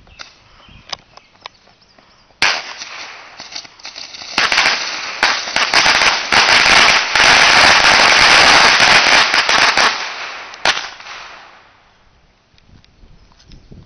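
A gross of bottle rockets going off together: a dense hissing barrage of rapid pops that starts suddenly about two and a half seconds in, builds to a loud peak, then dies away around twelve seconds, with one last sharp pop shortly before it fades.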